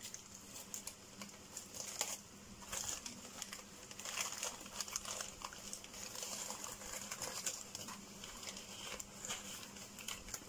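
White packing paper crinkling and rustling in irregular, crackly handfuls as it is pulled and peeled off a potted cactus.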